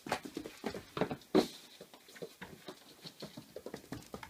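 Whippet puppy's paws and claws pattering and skittering on a wooden floor in quick play, with a louder knock about a second and a half in.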